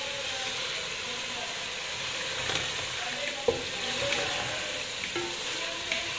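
Mutton pieces frying in oil and spice masala in an aluminium pot, a steady sizzle while a wooden spatula stirs and scrapes through them, with a few sharp knocks of the spatula against the pot, the loudest about halfway through. This is the browning of the meat in masala before the water is added.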